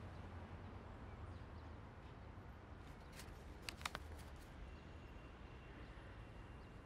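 Faint background ambience with a low steady hum, broken by a few brief faint clicks about halfway through.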